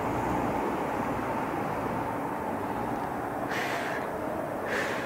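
Steady urban street background noise with a faint steady tone through it, and two short hisses a second apart near the end.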